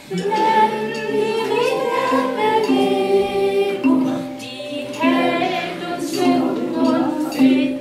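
A group of voices singing a song together, with hand percussion struck on the beat about once a second.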